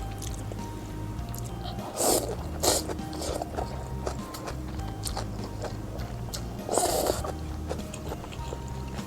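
Close-miked eating sounds over steady background music: loud bites and chewing come in three short bursts, about two seconds in, again soon after, and about seven seconds in.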